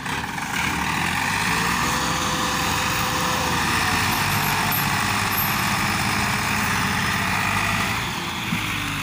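Massey Ferguson 260 tractor diesel engines running, one pulling a heavily loaded sugarcane trolley. The engine noise swells about a second in, holds loud and steady, then eases off near the end.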